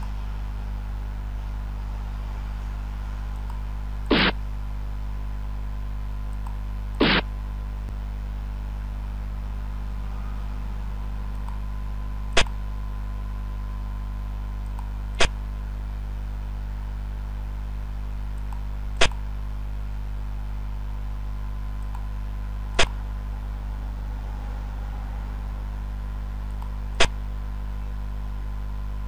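Board-game software's piece-move sound effects on a xiangqi board: two softer, slightly longer clacks about four and seven seconds in, then five sharp clicks spaced three to four seconds apart, over a steady low hum.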